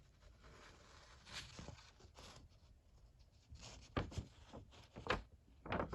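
Faint handling noise: a printed paper sheet rustling, with a few sharp taps or clicks about four and five seconds in.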